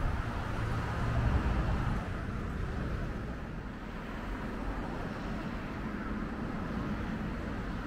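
Road traffic noise, with a louder low rumble from a passing vehicle about a second in.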